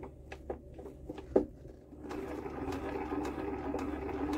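Old Lister diesel generator engine being turned over with the decompressor lifted. A few light ticks come first, then from about halfway a steady mechanical whirr with a click about twice a second. The click is the fuel injector clicking as it sprays: the freshly cleaned injector is working and not leaking off.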